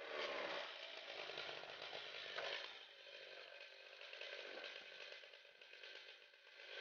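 Chainsaw power head of a swing blade sawmill with its revs falling right at the start, then a steady rattling, hissing mechanical noise as the mill winds down.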